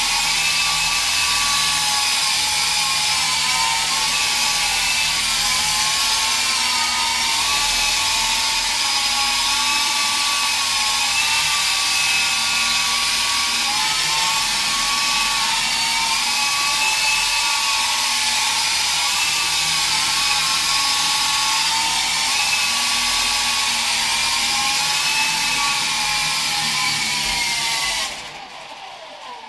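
Small electric RC helicopter's motor and rotors running in flight: a steady high-pitched whine that wavers slightly up and down with the throttle. Near the end the motor stops and the whine falls away quickly.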